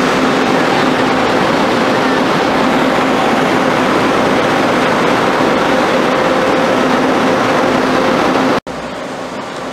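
Pingxi Line diesel railcar passing close by: a loud, steady rumble of engine and wheels with a steady hum running through it. It cuts off abruptly near the end, leaving quieter background noise.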